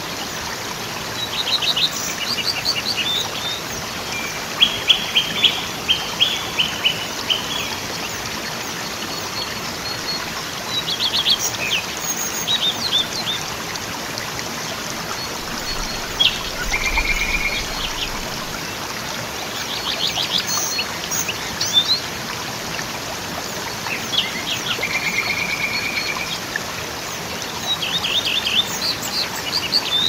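A waterfall's steady rush of water, with small birds chirping and trilling over it again and again.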